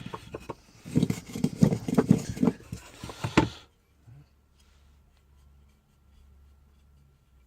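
Handling clatter from reassembling a restored block plane: a quick run of knocks, clicks and scrapes of its parts for about three and a half seconds, then only faint ticks over a low hum.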